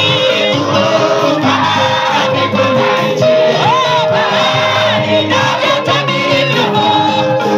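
Choir and congregation singing a gospel song, lead voices on microphones, over amplified instrumental backing.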